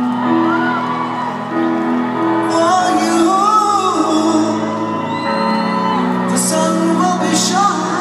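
Live arena performance of a slow ballad: a woman singing to piano, heard from the audience seats, with scattered shouts and whoops from the crowd, most noticeably in the last couple of seconds.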